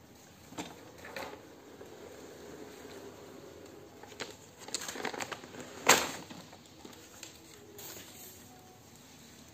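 Hands handling printer paper and the black plastic casing of an Epson L3210 printer: scattered light clicks, rustles and taps, with one sharp knock about six seconds in.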